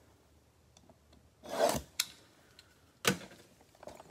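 Gloved hands handling a shrink-wrapped cardboard card box: a short rasping rub about one and a half seconds in, then a sharp click and, a second later, a knock.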